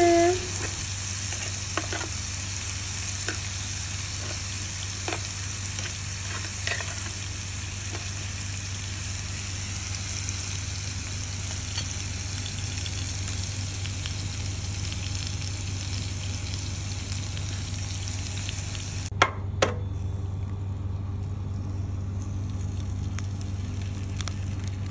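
Bean sprouts and chives sizzling in oil on a hot non-stick grill pan, with a steady low hum beneath and a few faint utensil ticks. Two sharp knocks come about 19 seconds in, and the sizzle is softer after them.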